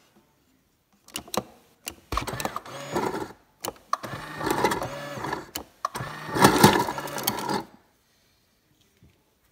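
Refrigerator door ice dispenser running: a motor hum with ice cubes clattering down the chute into a hand, in three spells after a few clicks about a second in, stopping near the end.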